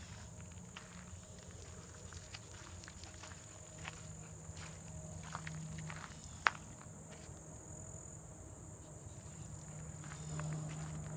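A steady high-pitched insect chorus trills throughout, with scattered crunching footsteps on a gravel trail and one sharper click a little past halfway.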